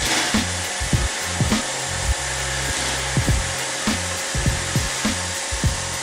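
iRobot Roomba 650 robot vacuum running, a steady whirring hiss of its vacuum motor and brushes, under background music with a steady bass beat.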